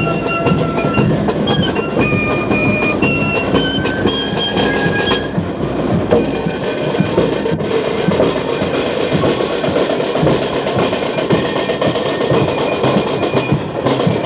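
A marching flute band plays a melody of high flute notes over snare and bass drums. About five seconds in the flutes drop out and the drums keep beating in a dense, rattling rhythm.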